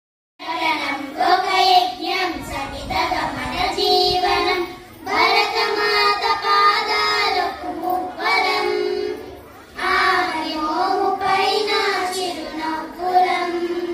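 A group of young girls singing together into microphones, in long sustained phrases with brief breaks between them.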